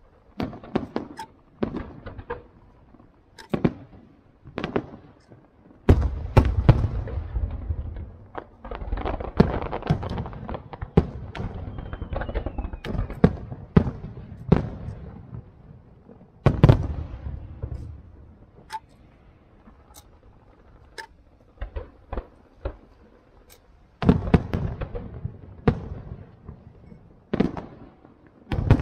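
Aerial firework shells bursting in a long series of sharp booms, each followed by a low rumble. The bursts come thickest about a fifth of the way in and again near the end, with a sparser stretch between.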